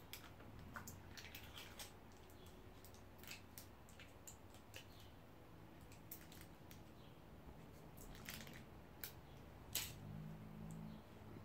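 Faint, scattered clicks and light rustles of plastic and paper food packaging being handled, with a sharper click near the end as a small plastic syrup tub is picked up and opened.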